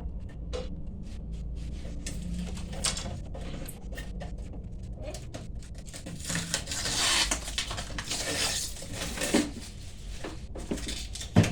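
Handling noise: scattered clicks and knocks as objects are moved about, with a stretch of rustling in the middle and one sharp knock near the end.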